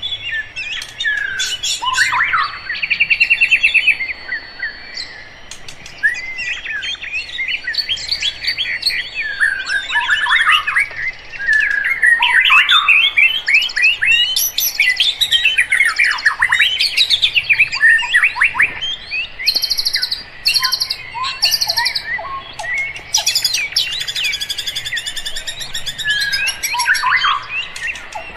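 Several birds singing and chirping at once: quick sweeping notes and short fast trills overlap continuously.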